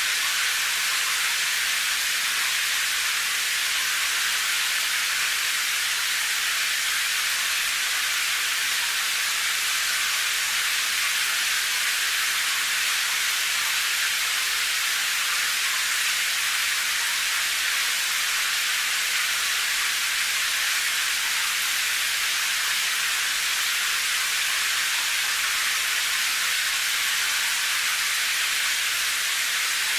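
Steady rain sound for sleep: an even, high hiss with no deep rumble and no separate drops standing out.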